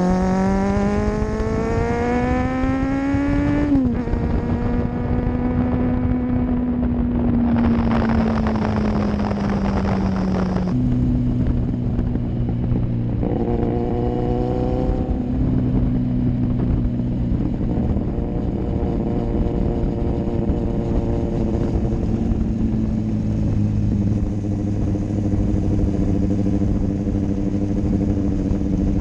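Kawasaki Z800's inline-four engine heard from a camera mounted on the bike while riding. It pulls up in pitch for about four seconds, shifts gear, then settles into a steadier cruising note, with a rush of noise around the middle and another short rise in revs a little later.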